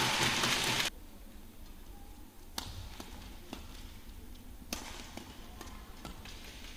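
Arena crowd applauding and cheering, cut off abruptly about a second in. Then a badminton rally: sharp racket strikes on a shuttlecock, the loudest about two and a half seconds in and again near five seconds, with lighter taps between.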